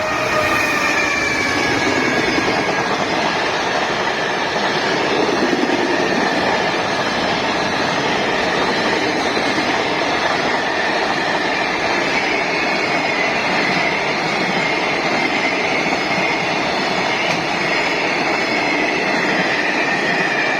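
Freight train passing close by: a loud, steady rumble of the cars rolling over the rails, with a high wheel squeal that wavers slowly in pitch.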